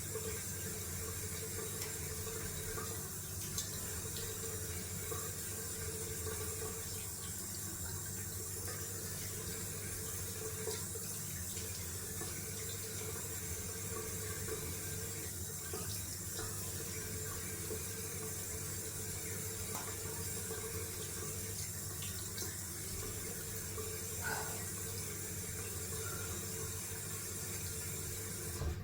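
Cold water running steadily from a bathroom tap into a sink, stopping suddenly at the end.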